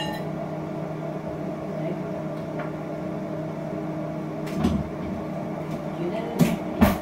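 Household knocks from setting a dinner table and handling kitchen things: one about two-thirds of the way in and two sharper ones near the end, the last the loudest. A steady low hum runs underneath.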